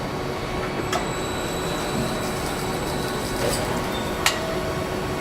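Car assembly plant machinery running with a steady hum and whine, with two sharp metallic clicks, one about a second in and a louder one near the end.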